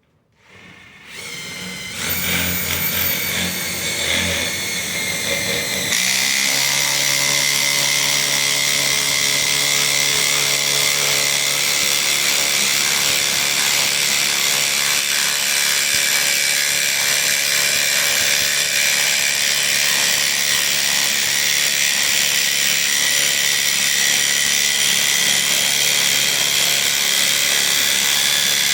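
Ridgid R87207 subcompact brushless 3/8-inch impact wrench, on speed 3, driving a 1/2 by 8 inch lag bolt into a cedar 4x4 with no pilot hole. The tool spins up over the first couple of seconds. About six seconds in, under the bolt's load, it changes to a steady impacting hammer that keeps going.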